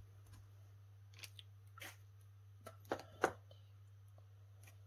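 A few light clicks and rustles from craft supplies in plastic packets being handled, the sharpest a little after three seconds in, over a faint steady low hum.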